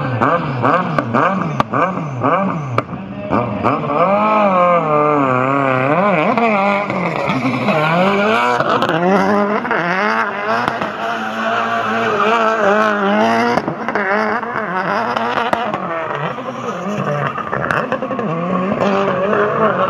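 Rally car engine revving up and down over and over as the car spins donuts, its pitch rising and falling every second or two, with tyre noise from the wheels spinning on tarmac.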